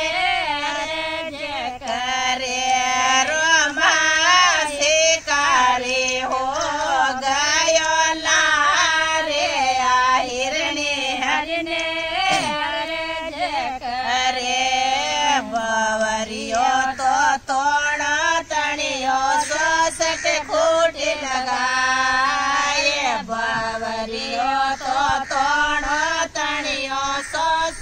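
Women singing a Marwari devotional bhajan in folk style, their voices running on continuously with long held, wavering notes.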